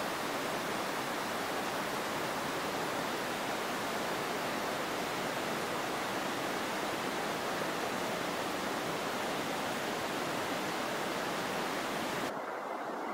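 Steady rushing noise with no distinct events in it. Near the end the higher hiss cuts out suddenly, leaving a duller rush.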